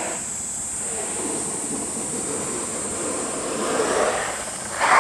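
A steady rushing noise, typical of wind and a board sliding on snow, that swells about four seconds in and jumps louder right at the end.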